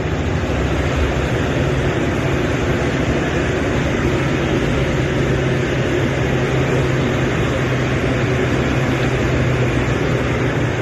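Coach bus heard from inside the passenger cabin: steady engine and road noise with a low drone.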